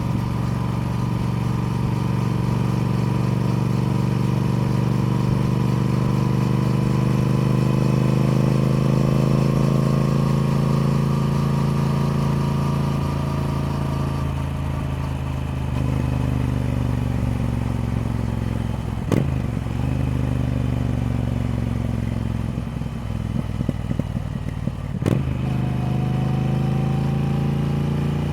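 Triumph Speed Twin parallel-twin engine running under way, its note climbing slowly for about ten seconds, then dropping away and holding lower. Two sharp clicks come in the second half, and the engine note starts rising again near the end.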